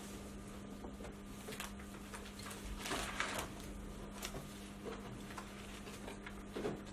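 Quiet indoor room tone with a steady low hum, broken by faint scattered rustles and small clicks, the clearest rustle about three seconds in.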